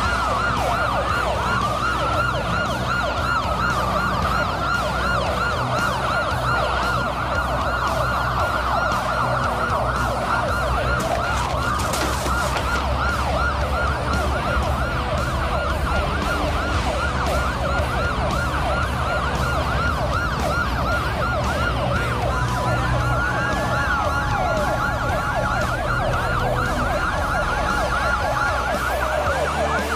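Several police car sirens wailing at once, their rising and falling tones overlapping without a break, over a low steady drone.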